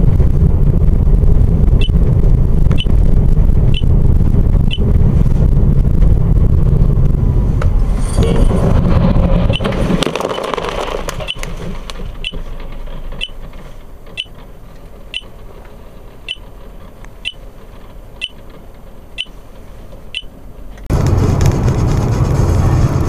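Inside a moving car: steady road and engine noise with a short high beep about once a second. About eight seconds in, a swell of noise comes as a car ahead crashes off the road. The road noise then drops away while the beeps go on among scattered knocks, and loud road noise cuts back in near the end.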